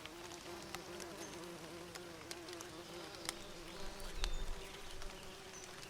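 Bees buzzing, a steady, slightly wavering hum, with scattered sharp clicks and a brief low rumble about four seconds in.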